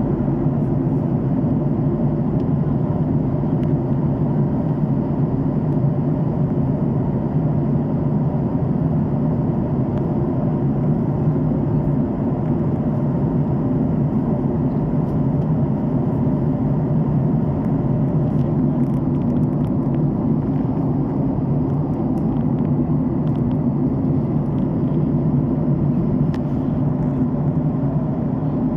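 Airplane in flight: a steady, unchanging engine drone with a low hum.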